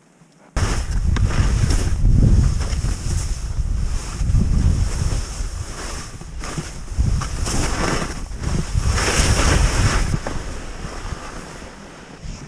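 Wind buffeting the camera's microphone during a downhill ski run, a loud uneven rumble that starts abruptly about half a second in. The hiss of skis cutting through powder snow rises and falls over it, strongest around two and nine seconds in.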